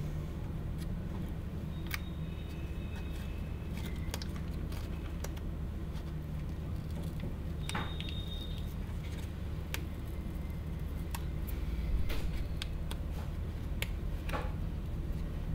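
Steady low room hum with scattered light clicks and taps, and two brief high thin tones, one about two seconds in and one about eight seconds in.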